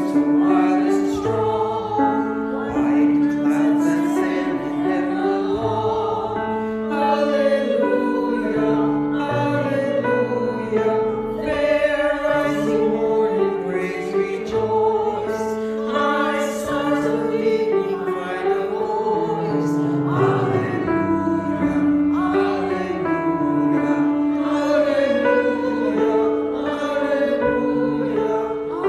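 Music: a small group of voices singing a slow song together, with long held notes.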